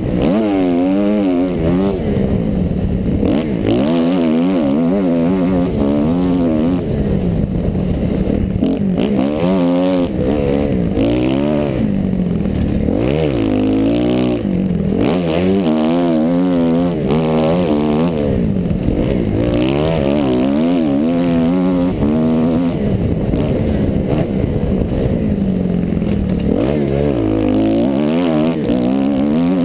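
Kawasaki KX dirt bike engine being ridden hard on a trail, its pitch rising and falling rapidly and repeatedly as the throttle is worked on and off.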